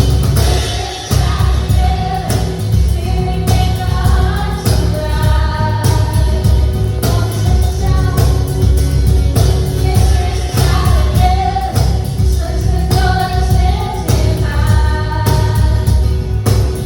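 Contemporary worship song: several voices singing in harmony over a full band with heavy bass and a steady drum beat.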